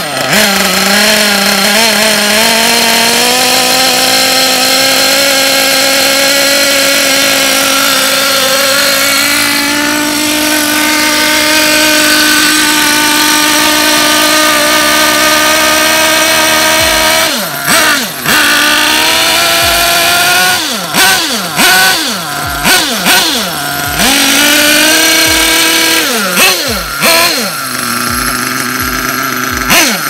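1/8-scale nitro RC buggy's small glow-fuel engine running at a steady high idle. From about 17 seconds in it is revved in a series of quick throttle blips, pitch rising and falling each time, then drops back to a lower idle near the end.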